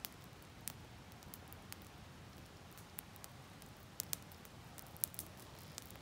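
Small campfire of twigs and dry straw crackling: irregular sharp pops, the loudest about five seconds in.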